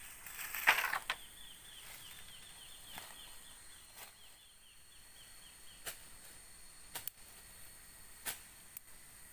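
A brief rustle of dry leaf litter under footsteps and a long pole being moved, then scattered sharp clicks and knocks. A faint high chirping repeats about four times a second for a few seconds.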